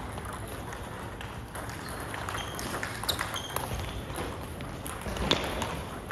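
Table tennis ball clicking off the bats and the table in quick, uneven taps, some with a short high ping; the loudest hit comes about five seconds in.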